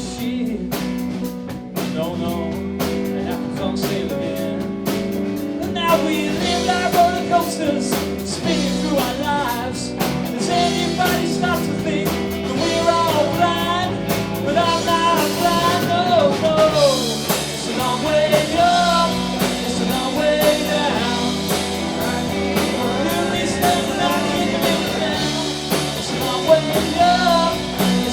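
Live band playing a song with guitar and drums under a steady bass line; a bending melody line, sung or played on lead guitar, comes in about six seconds in.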